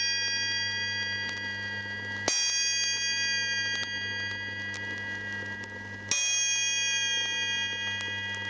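Orchestral triangle struck twice, about four seconds apart, each strike ringing on with a bright cluster of high tones that slowly fades. A steady low hum runs underneath from the old vinyl transfer.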